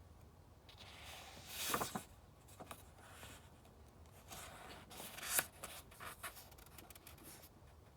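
Paper rustling as book pages are handled and turned: two rustles, the first peaking just before two seconds in and the second about five seconds in, each ending in a short crisp flick, with a few light taps between them.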